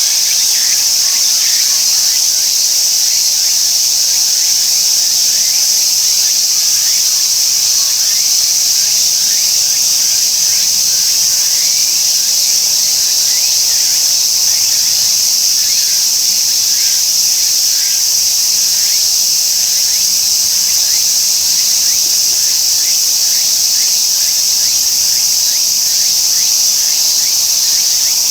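Tsukutsukuboshi cicada (Meimuna opalifera) singing: a loud, steady, high-pitched buzz with faint quick pulses beneath it.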